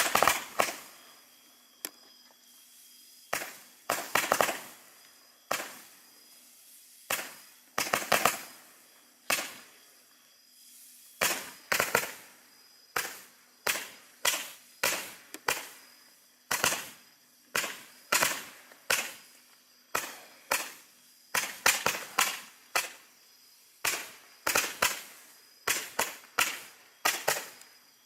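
Roman candle (Vulcan Fireworks White Glitter to Green Comet) firing shot after shot: a long series of sharp pops, each with a short fading tail. The pops come about once a second at first and quicken to one or two a second in the second half.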